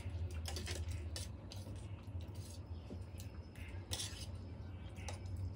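A metal fork clinking and scraping on a steel plate while noodles are chewed, in scattered sharp clicks over a steady low hum.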